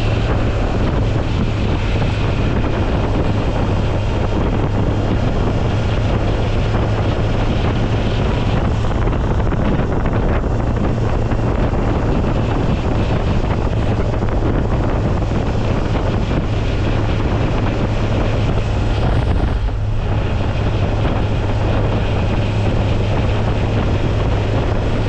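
Touring motorcycle cruising at road speed: a steady engine drone buried in heavy wind noise on the microphone. There is a brief lull about twenty seconds in.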